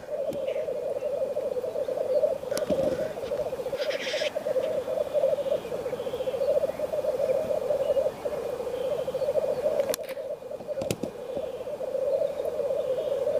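Lekking male black grouse: a continuous bubbling, cooing chorus of several males, with a short hissing call about four seconds in.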